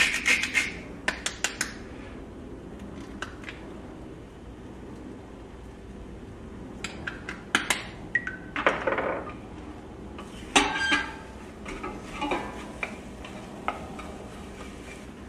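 Wooden spatula stirring and scraping scrambled eggs in a nonstick frying pan, with scattered sharp knocks of the spatula against the pan. A salt grinder grinds briefly at the very start.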